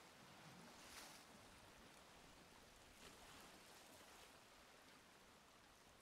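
Faint sea waves washing in, a soft continuous wash with gentle swells about a second in and again about three seconds in.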